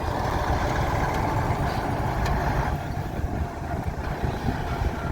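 Heavy diesel engine of a Doosan 140 excavator running under load while it loads a dumper truck. A higher hiss rides over the engine for the first two and a half seconds, then falls away.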